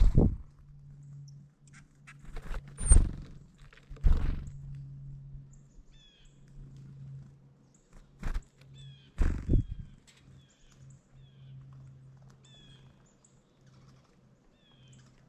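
Several loud, sudden thumps, as of birds knocking against a feeder close to the microphone, followed by a bird calling over and over with short, downward-sliding chirps.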